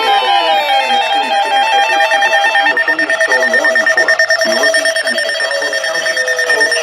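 Electronic emergency-alert tones layered together: several steady held tones with stepping, warbling tones above them, and falling siren-like glides dying away in the first second or so.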